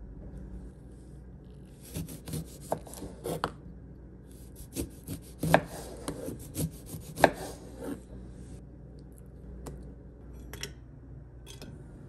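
Kitchen knife slicing a lemon on a wooden cutting board: two runs of quick cuts, each stroke ending in a knock of the blade on the board. The loudest knocks come in the second run.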